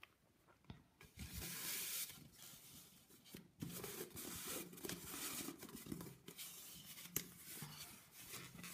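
Cotton jersey fabric band rustling and rubbing as it is stretched and pulled over a styrofoam head, starting about a second in, with a few small knocks of hands against the foam.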